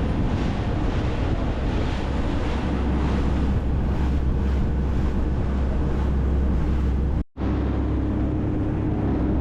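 Fishing charter boat's engine running steadily under way, with wind on the microphone. The sound drops out for an instant about seven seconds in, then a steady engine hum resumes with a held tone over it.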